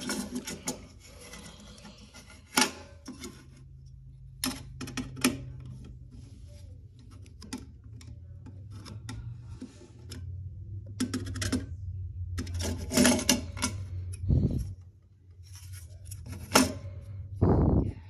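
Irregular clicks and short scrapes of a screwdriver working at the terminal screws of a plastic smoke-detector base, over a low steady hum. A couple of dull thumps near the end.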